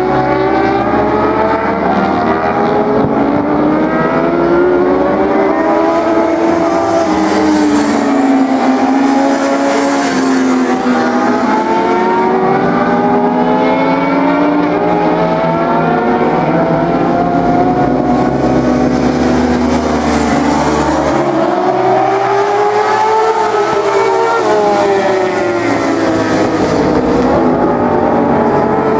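Several racing sport motorcycles at speed through a corner, their engines running at high revs. Engine pitch climbs and falls again and again as the bikes brake, shift gears and accelerate past one after another.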